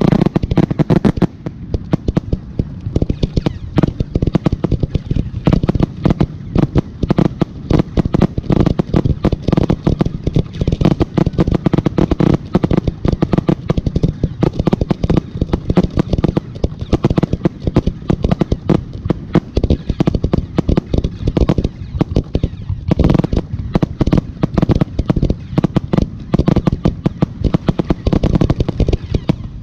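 Fireworks going off in a dense, rapid barrage of bangs and crackles, many reports a second, with a brief lull about two-thirds of the way through.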